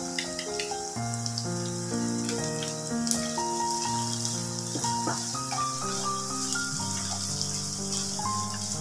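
Background music of slow held notes over chopped onions sizzling in oil in a kadhai, with a wooden spatula stirring and knocking against the pan a few times.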